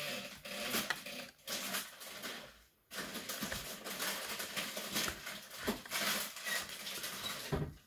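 Light rustling and scraping with small clicks as metal tweezers and fingers work at tape and a fragile flat cable inside an open laptop, pulling gently against its metal shield. There are two brief pauses, at about one and a half seconds and just before three seconds.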